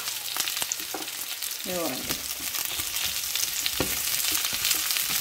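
Chopped onions and bell peppers sizzling in hot oil in a frying pan, stirred with a wooden spatula that scrapes and taps against the pan now and then.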